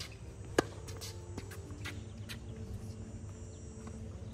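A tennis ball struck hard with a racket on a serve, one sharp crack about half a second in, followed by a few much fainter knocks of the ball as the point plays out.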